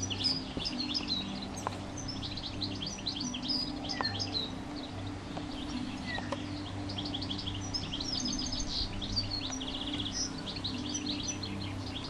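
Several small songbirds chirping and twittering continuously, quick high notes overlapping, over a low steady hum that breaks off now and then.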